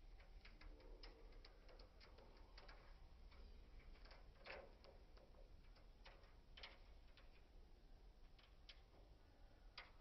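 Faint, irregular clicks and taps of a parrot's claws and beak on the metal mesh of its cage as it climbs about, a few a second, over near silence.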